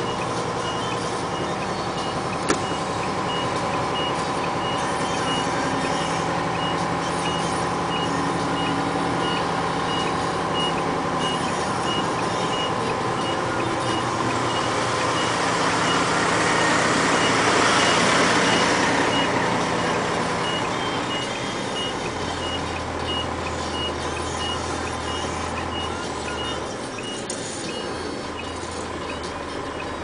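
Heavy construction vehicles working on a roadbed: a steady string of short reversing-alarm beeps over running diesel engines. A rushing noise swells and fades a little past the middle, and a deeper engine drone comes in near the end.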